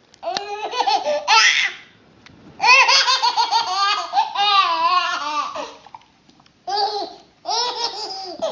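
A baby laughing in high-pitched giggles, in five runs of quick bursts with short pauses between them, the longest lasting about three seconds.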